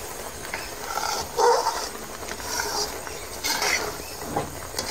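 A metal spoon stirring and scraping thick, sticky carrot burfi mixture in a steel pan. A few short pitched sounds come over it, one about a second and a half in and more near the end.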